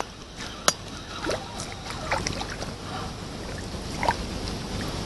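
Small splashes of water and scattered light clicks and knocks over a steady wash of outdoor noise, with one sharp click about a second in.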